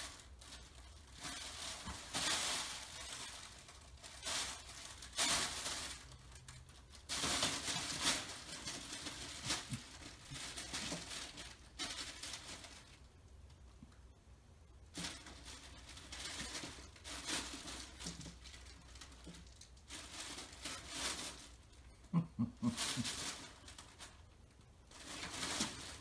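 Fabric crinkle cat tunnel rustling and crinkling in irregular bursts as a cat scrambles and thrashes around inside it, with a few soft knocks near the end.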